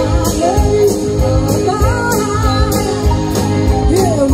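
A live rock band playing: a woman sings a melody over electric guitars, bass, keyboards and drums, with the drums keeping a steady beat.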